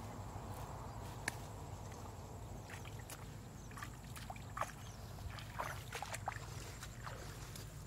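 Leafy weeds rustling and swishing as a person pulls stems by hand and walks through the dense growth, with a scatter of light clicks and snaps in the second half.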